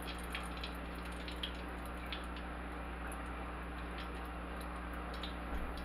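Faint, scattered small pops and ticks from a saucepan of cooking oil heating on the stove, with ghee just spooned in, over a steady low electrical hum.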